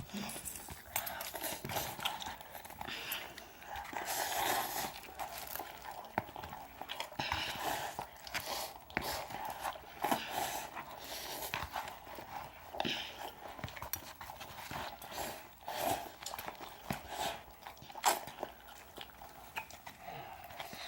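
Two people eating instant ramen noodles fast, with irregular slurps, wet smacks and chewing.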